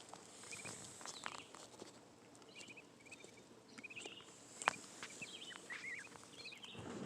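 Goslings peeping in short groups of quick high notes, with a few soft clicks and rustles from footsteps on the ground, one sharper click about two thirds of the way through.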